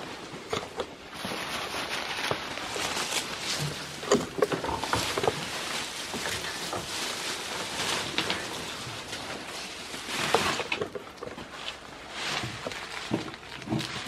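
Continuous rustling and shuffling with scattered knocks and clicks, as someone carrying the camera moves around the goat shed.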